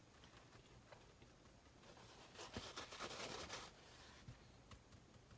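Paintbrush bristles dabbing and scrubbing in acrylic paint: a quick run of soft, scratchy dabs lasting about a second and a half, near the middle. Otherwise near silence.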